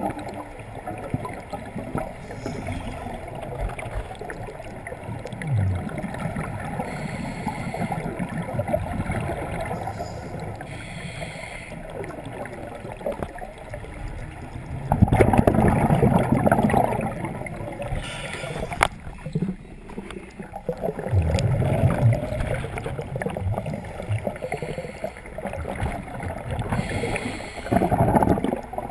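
Underwater sound of scuba breathing: a steady bubbling, gurgling bed, with three louder surges of exhaled regulator bubbles a few seconds apart in the second half.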